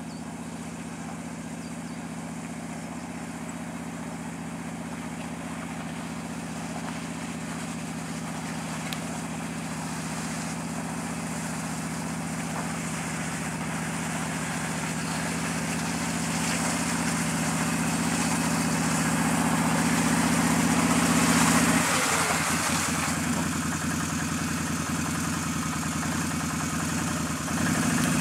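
Can-Am Outlander 650 Max ATV's V-twin engine running at low, steady revs, growing louder as the quad comes closer. Its note shifts and eases slightly about two-thirds of the way through, with another brief dip near the end.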